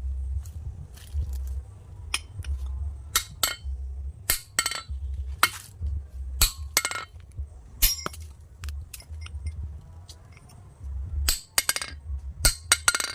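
Hand-chiselling stone: sharp metallic clinks of a hammer driving a chisel into the stone, irregular strikes, often in quick pairs or triples, over a low rumble.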